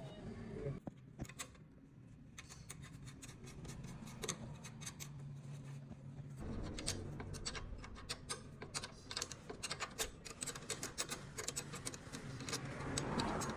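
Scratching with many quick, irregular clicks, as from hand work with tools. A low steady hum comes in about halfway through.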